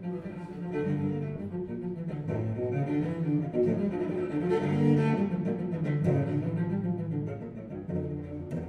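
Instrumental music of bowed low strings, cello-like, played back through Marten hi-fi loudspeakers: sustained deep notes moving slowly in a steady line.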